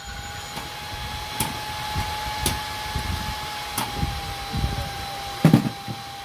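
Loudspeakers driven by a power amplifier putting out a steady whistling tone over a rushing hiss, with scattered low thumps and a few sharp clicks. The loudest is a thump about five and a half seconds in.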